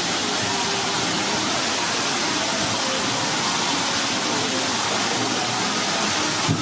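Steady rush of flowing water, with faint voices of people in the background.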